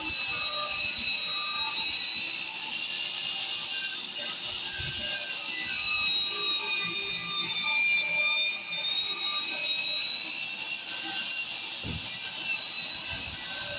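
Angle grinder with a wire wheel brush scouring rust off a steel pipe: a steady high whine, its pitch dipping slightly around the middle.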